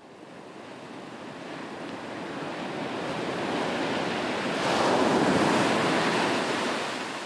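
Rush of ocean surf, a single wave swelling slowly to a peak about five seconds in and then fading away.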